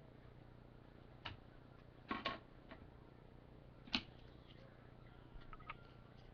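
A few soft clicks and brief rustles, spaced a second or two apart, of trading cards and their packaging being handled, over a faint steady low hum.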